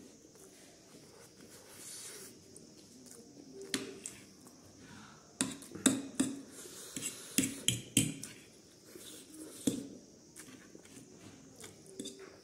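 Metal fork and spoon clinking and scraping against a ceramic bowl of noodles. The sharp clinks come in an irregular string and are thickest in the middle.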